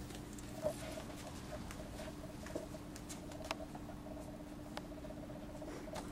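Books being handled: a few soft clicks and taps as books are held and one is pulled from a shelf, over a steady low hum and a faint rapid ticking.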